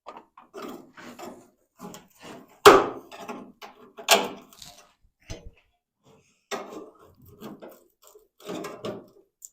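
Irregular short scraping and knocking of hand work on a car body's sheet metal, with two sharper, louder knocks about three and four seconds in.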